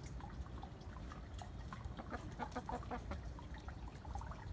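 Domestic chickens clucking, a quick run of clucks about two seconds in, over a steady low rumble.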